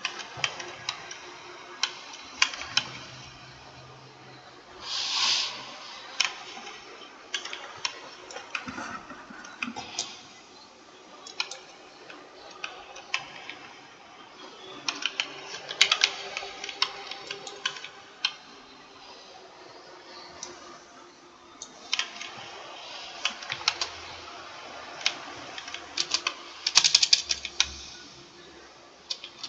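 Typing on a computer keyboard: irregular key clicks, with quicker runs of keystrokes about halfway through and again near the end.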